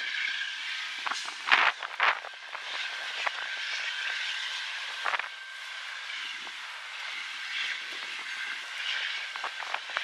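Freight train rolling past at a distance: a steady rail noise with faint high steady tones over it. A couple of loud sharp thumps come about one and a half and two seconds in, and a smaller one near the middle.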